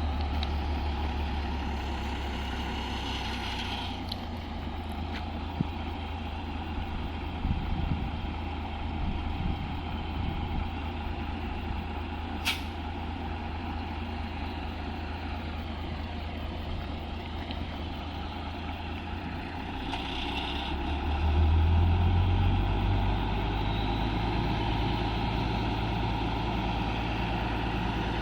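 Excavator's diesel engine running steadily, picking up and running louder about three quarters of the way through. There is a single sharp click around the middle.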